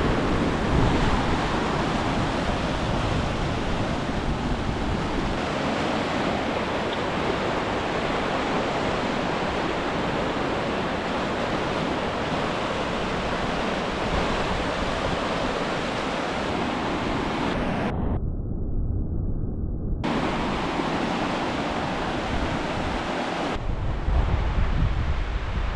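Floodwater rushing in a swollen river, a steady dense roar of water with wind rumbling on the microphone at times. The sound changes abruptly several times as one clip cuts to the next.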